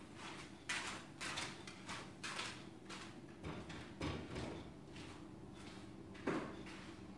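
Scattered faint knocks and rustles of a person moving about and handling household things: several close together in the first two seconds or so, then two more, one about four seconds in and one about six seconds in.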